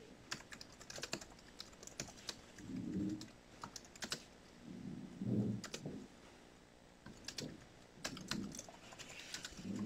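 Typing on a computer keyboard: irregular, scattered keystrokes, with a few faint low murmurs in between.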